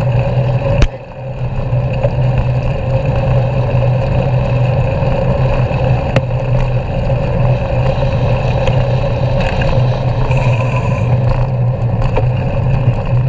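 Steady drone of wind and road noise on a helmet camera while riding along the road, with a click and a brief drop in level about a second in.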